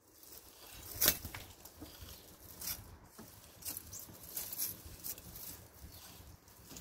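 Chickens scratching and pecking in loose soil: irregular scuffs and small clicks, the loudest about a second in.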